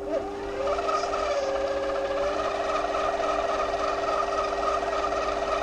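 Compact electric trim router running at speed: a steady motor whine with a higher band that wavers and sags slightly now and then.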